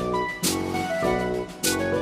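Background music: instrumental track with a steady beat and keyboard-like chords.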